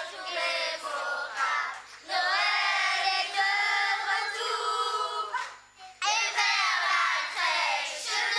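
Children's choir singing in unison, in phrases broken by short pauses about two and six seconds in.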